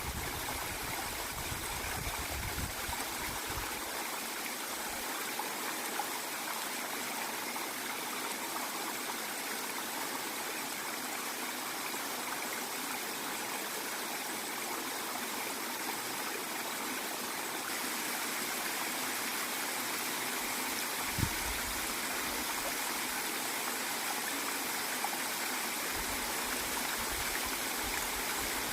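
Waterfall and its stream, water falling and rushing in a steady, even wash. A single brief low thump comes about two-thirds of the way through.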